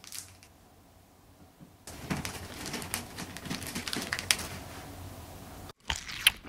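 Faint handling sounds with scattered soft clicks as a sticky red gummy sheet is rolled up by hand on a plate.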